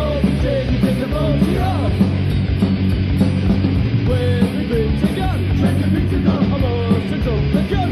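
Punk rock song by a full band, loud and steady, with electric guitar.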